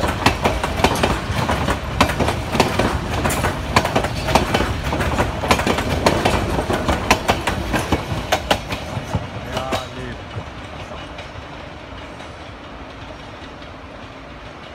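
White Pass & Yukon Route narrow-gauge passenger coaches rolling past close by, their steel wheels clattering over the rail joints in quick, irregular clicks. About ten seconds in, the clatter stops as the last car goes by, leaving a quieter rumble that fades as the train moves off.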